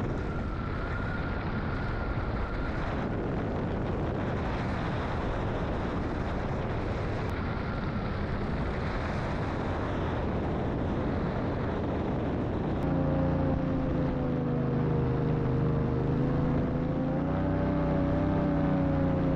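Steady wind rush, then about thirteen seconds in the drone of a running engine comes in over it, its pitch wavering slightly.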